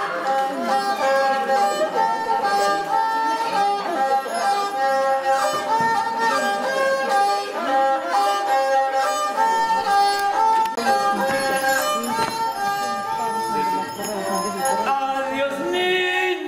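Traditional music led by a violin, playing a repeating melody of held notes.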